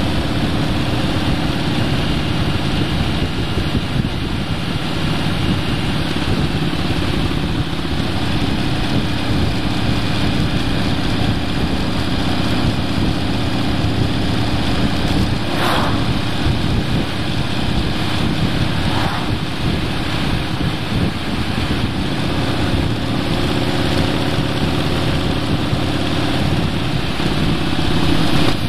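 A vehicle's engine running steadily at cruising speed under wind and road noise. About halfway through, an oncoming truck passes with a brief whoosh.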